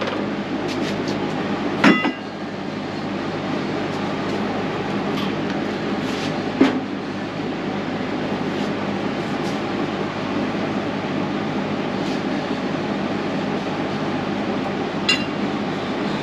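Steady mechanical running noise in a workshop, broken by a few metal clinks. A ringing one comes about two seconds in, with lighter knocks near seven and fifteen seconds.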